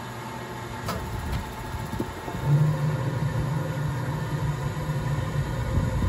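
Gas furnace starting up: the inducer fan hums, a click sounds about a second in, then the burners light about two and a half seconds in with a sudden, louder low rumble that carries on steadily.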